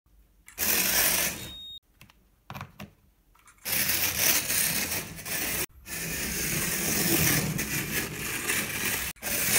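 Alfa Romeo 33TT3 Scalextric slot car's small electric motor whirring as the car runs along the slot track, in several loud passes that start and stop abruptly.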